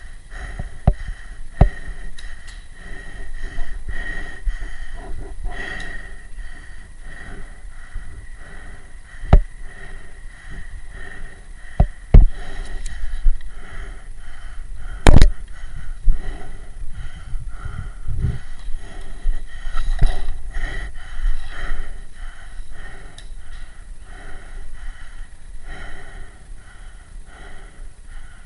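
Fast, heavy breathing inside a paintball mask, with several sharp cracks of paintball fire. The loudest crack comes about halfway through.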